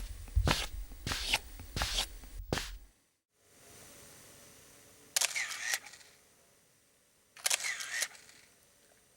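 Footsteps in slippers, played as foley sound effects from a phone app, about two steps a second for the first three seconds; after a brief dropout, two identical short effects a couple of seconds apart.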